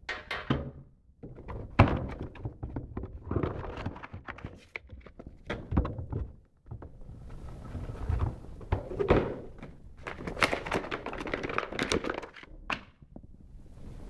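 Cardboard box and its paper contents being handled on a table: irregular thunks, knocks and rustling as the box is turned over and opened.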